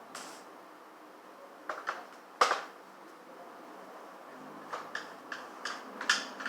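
Scattered small clicks and taps of hand work on a laptop's plastic case and screws, with one sharper knock about two and a half seconds in and a run of lighter clicks near the end.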